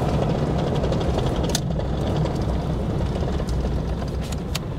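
Swapped-in mechanical 12-valve Cummins diesel heard from inside the cab while driving, its low running sound easing off as the engine dies again, cause not yet known. A few sharp clicks sound over it.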